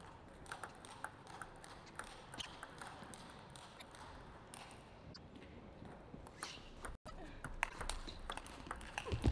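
Table tennis ball clicking sharply and irregularly off bats and table, with louder, quicker hits in the last couple of seconds as a rally gets under way.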